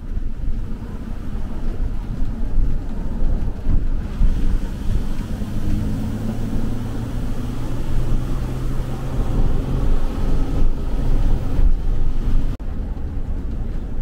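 Camper van driving on a rural road, heard from inside the cab: a steady engine and road rumble with wind noise.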